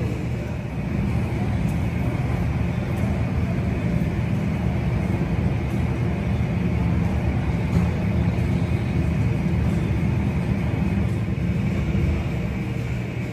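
Boeing 737-800's CFM56 turbofan engines idling: a steady low drone with a faint high whine over it.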